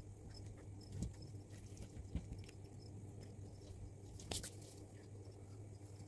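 Pieces of cork bark being broken and handled by hand: scattered faint crackles and clicks, with one louder crackling snap about four seconds in, over a low steady hum.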